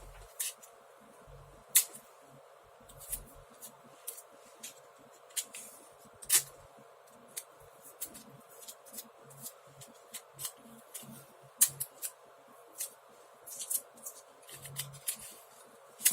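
Irregular sharp clicks and light crinkling from small objects being handled by hand, with a faint steady hum underneath.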